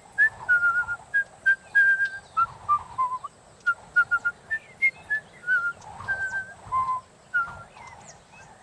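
A quick, lively run of short whistled notes, each held briefly at a steady pitch, some sliding up into the note, with light clicks between them.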